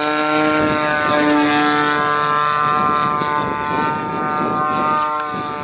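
30cc two-stroke petrol engine of a radio-controlled Edge 540 model aerobatic plane running at high, steady throttle, a loud even buzz, a little quieter near the end.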